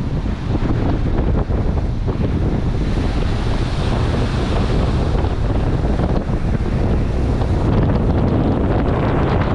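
Strong wind noise rumbling on the microphone over the steady wash of breaking surf.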